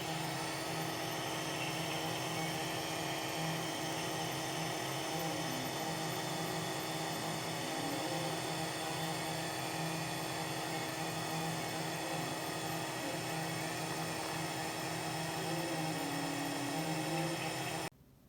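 Homemade laser CNC engraver with an ATOMSTACK M50 laser module running: a steady hum from its fan and motors, with a stepper-motor whine that dips and rises in pitch a few times as the head changes speed. It cuts off suddenly near the end.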